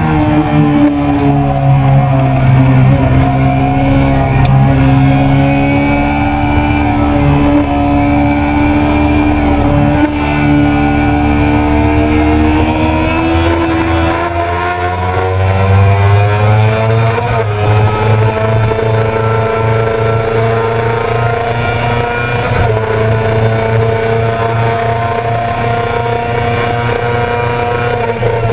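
A 2000 Yamaha R6's 600 cc inline-four engine running hard at high revs, heard from an onboard camera. Its pitch dips and then climbs slowly with the throttle, shifts about two-thirds of the way through, and then holds high.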